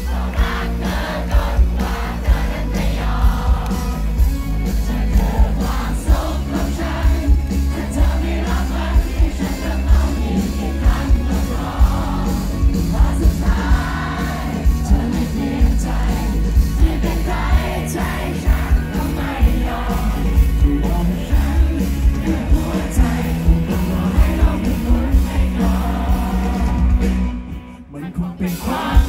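Live band playing a Thai pop-rock song with a male lead singer, heard from within the audience, with heavy bass, a steady drum beat and the crowd's voices mixed in. The music drops away briefly near the end, then comes back in.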